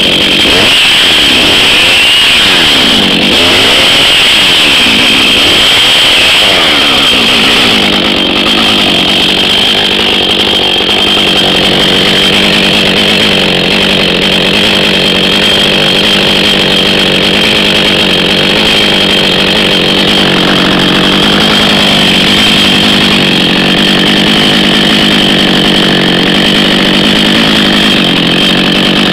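Husqvarna 555 two-stroke chainsaw revving up and down several times over the first few seconds, then held at a steady high speed while cutting into a dead ash trunk.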